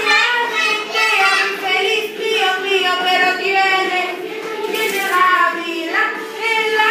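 A group of three- and four-year-old children singing a song together in unison.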